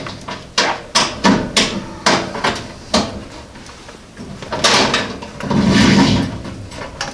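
Clicks and knocks of flexible armored MC cable being worked through a hole into a unit heater's sheet-metal cabinet: a quick run of sharp knocks in the first three seconds, then two longer scraping rustles.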